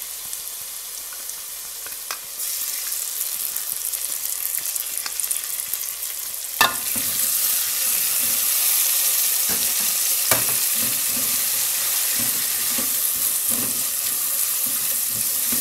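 Tomato sauce sizzling in hot olive oil with sautéed onion and garlic in a metal pan, stirred with a silicone spatula. A sharp knock about six and a half seconds in and another near ten seconds; the sizzle grows louder from the first knock on.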